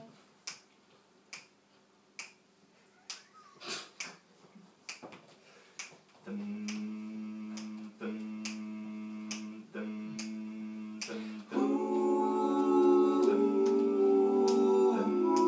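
A cappella intro: finger snaps keep time at about one a second. About six seconds in, a low hummed bass note starts in short held phrases, and from about eleven seconds more voices join it in a sustained chord.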